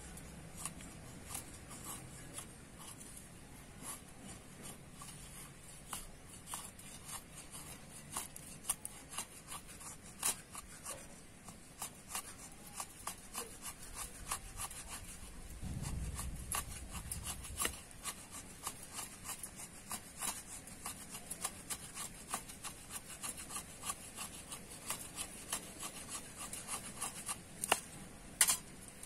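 A knife blade shaving thin curls off a small dry stick: many short, irregular scraping strokes, with a few sharper clicks near the end.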